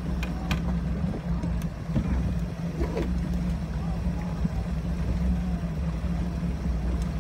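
Small fishing boat's engine running at a steady trolling speed, a constant low hum, with water and wind hiss over it.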